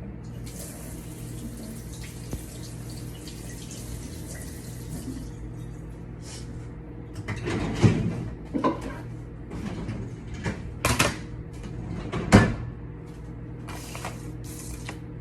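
Kitchen tap running for about five seconds while a lemon is rinsed under it, then a scattering of sharp knocks and clatters.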